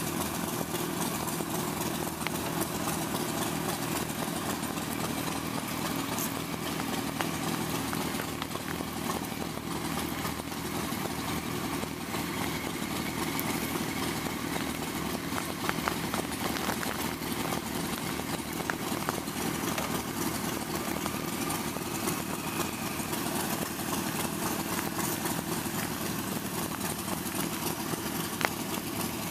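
Motorcycle engines idling steadily, with no revving and a couple of faint clicks.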